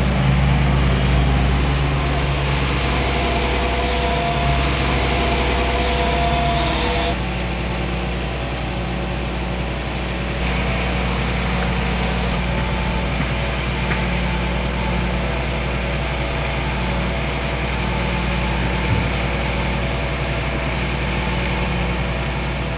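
Heavy machinery running steadily at a waste recycling plant: a constant low engine hum with a rushing mechanical noise over it. The mix changes abruptly about seven seconds in.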